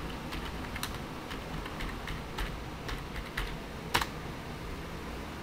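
Typing on a computer keyboard: a run of irregular key clicks, then one louder key press about four seconds in that submits the search.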